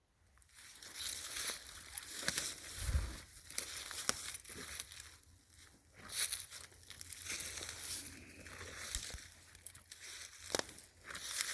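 Footsteps crunching through leaf litter on frozen ground: an uneven run of rustling and crackling steps that starts just after the beginning.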